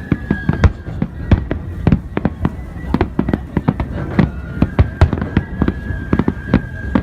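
Fireworks going off in quick, irregular succession, several sharp bangs a second over a continuous low rumble.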